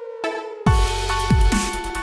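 Electronic background music. A held synth tone slowly falls in pitch, then a heavy beat of deep kick drums comes in about two-thirds of a second in, roughly one hit every 0.6 s.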